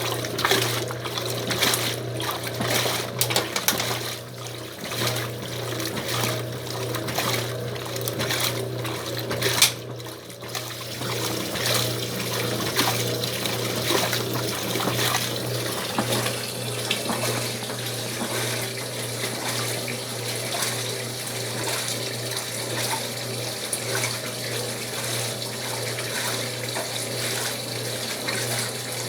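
Old Wanke washing machine running with water in the tub: a steady motor hum under churning, splashing water. The splashing is choppier for about the first ten seconds, then evens out into a steadier wash.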